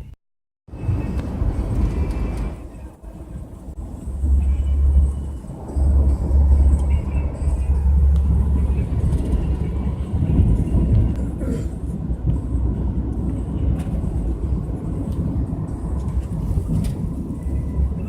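Bus engine and road noise heard inside the passenger cabin: a steady low rumble that starts after a brief dropout.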